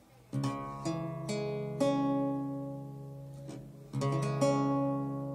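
A newly built 13-course baroque lute being played: a chord about a third of a second in, followed by several more plucked notes that ring and slowly fade, then another chord just under four seconds in.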